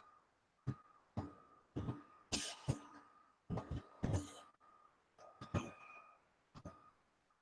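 A dozen or so faint, short clicks and breathy noises spread out, with silence between them, heard through a video-call microphone.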